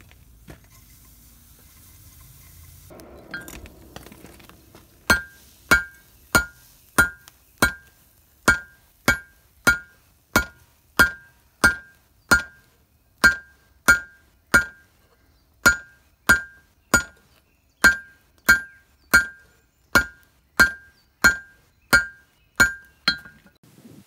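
Hand hammer striking a hot, fluxed Damascus steel billet on an anvil: forge-welding the layered stack. After a faint hiss, the blows begin about five seconds in and come steadily, about one and a half a second, each with a short metallic ring.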